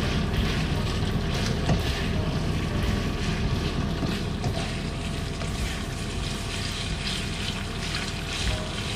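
Diced chicken and onions sizzling in a non-stick frying pan, stirred with a spatula that scrapes against the pan, over a steady low rumble.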